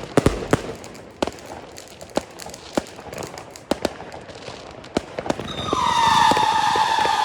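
Fireworks going off: scattered sharp cracks and bangs of bursting shells and crackling effects. About five and a half seconds in, a long whistle begins, falling slightly in pitch, from a whistling firework effect.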